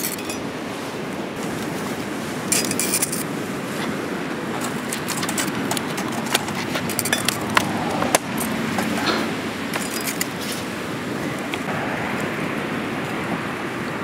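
Crackling charcoal and wood fire under a small cast-iron Dutch oven, with scattered sharp metal clinks from tongs handling the charcoal.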